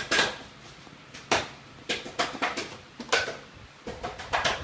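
A toddler banging hands on a plastic stool top: irregular sharp knocks, about ten in all, some in quick pairs and triples with short pauses between.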